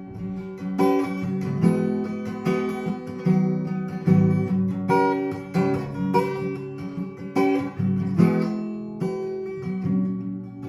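Acoustic guitar strumming chords in an instrumental passage of a worship song, the strums coming in a steady rhythm.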